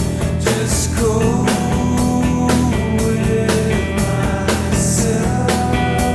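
Background rock music with a steady drum beat, guitar and sustained notes.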